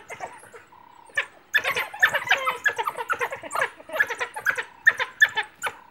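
African wild dogs twittering: a rapid string of short, high-pitched chirping calls that starts about a second and a half in.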